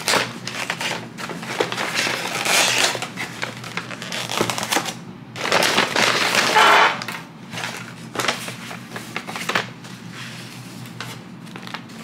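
Stapled brown paper bag crinkling and rustling as it is handled and pulled open, with small clicks and a louder stretch of rustling about six seconds in.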